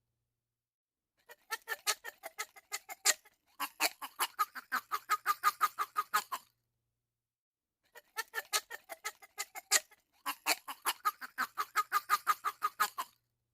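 Drinking straw squeaking in four runs of rapid squeaks, about six or seven a second, with short silences between the runs.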